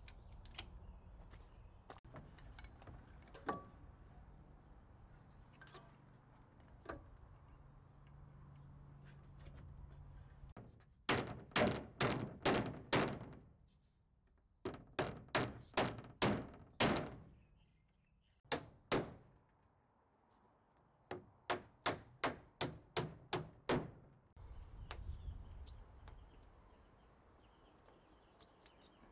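Hammer driving nails through a plywood siding sheet into a timber frame: four runs of quick, sharp blows, about three a second, through the second half, after a few scattered light clicks.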